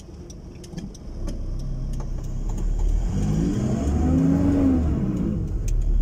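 Car engine accelerating over steady road rumble: its note climbs from about three seconds in, then eases off again about a second later.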